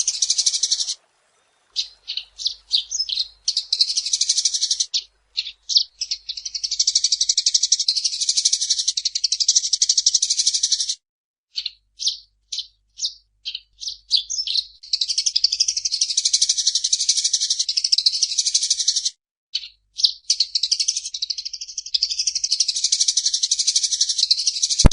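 Eurasian tree sparrow chirping: short separate chirps that run into long, dense bouts of rapid chattering, broken by brief pauses about 11 and 19 seconds in.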